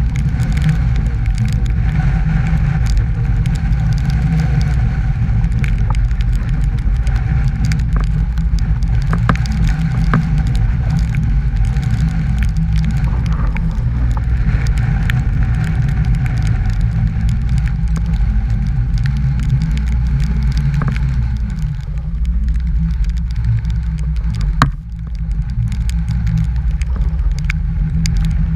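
Strong gale-force wind buffeting the microphone: a steady, heavy low rumble with scattered small ticks and crackles, easing briefly about 25 seconds in.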